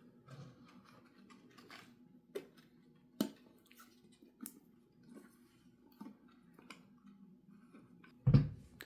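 Handling noises from toy pieces and packaging: scattered light clicks and taps, with one louder thump near the end.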